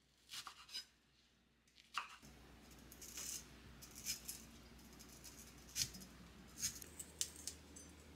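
Faint, scattered clicks and taps of small objects being handled, over a low steady room hiss that comes in about two seconds in.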